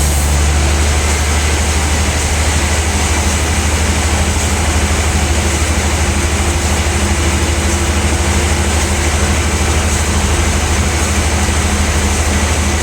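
Large log-sawing machinery in a sawmill running steadily with a constant low drone and no let-up.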